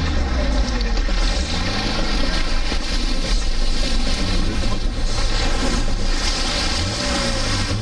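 4x4 driving through a shallow river: water splashing and washing against the front of the vehicle while its engine runs, its pitch rising and falling with the throttle. Wind buffets the outside-mounted microphone throughout.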